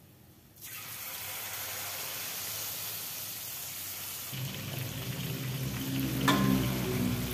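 A steady sizzling hiss from the pot on the stove starts suddenly about half a second in, while a metal ladle scoops vegetable soup from a stainless pot into a glass bowl. A low hum joins about four seconds in, and a sharp clink, the loudest sound, comes about six seconds in.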